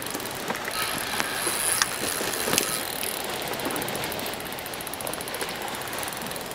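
Steady wash of sea and wind along a rocky shore, with a few faint clicks and knocks.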